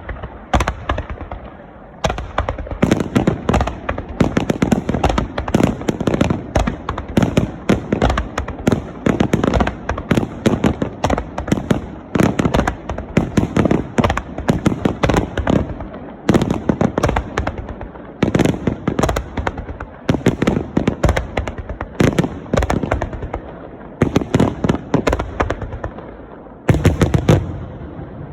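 Fireworks finale: rapid, overlapping volleys of shell bursts and crackling, many bangs a second. Lighter for the first couple of seconds, then dense, easing off a few seconds before the end before one last short cluster.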